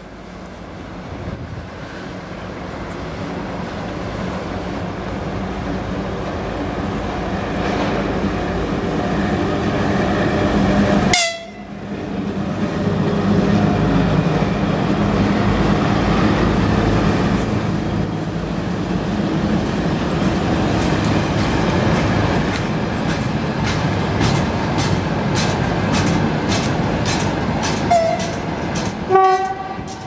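Freight trains hauled by electric locomotives running past on the adjacent track: a VL10U electric locomotive with tank wagons comes closer and grows louder, then a locomotive passes close by with a steady rumble and a regular clatter of wheels over the rail joints. A short horn blast sounds near the end.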